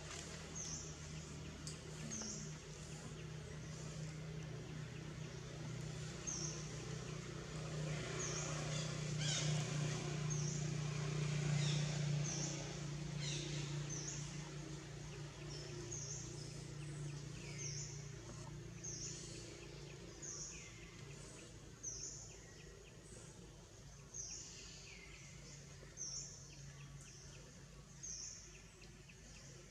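A bird chirping over and over, short high notes about once a second, over a low hum that swells near the middle and then fades.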